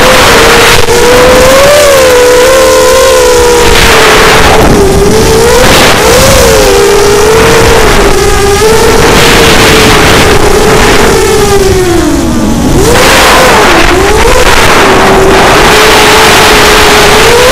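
ImmersionRC Vortex 250 Pro FPV racing quadcopter's brushless motors and propellers whining loudly, the pitch wavering up and down with the throttle, heard from on board the quad with rushes of wind noise. About twelve seconds in the pitch drops sharply and then climbs back.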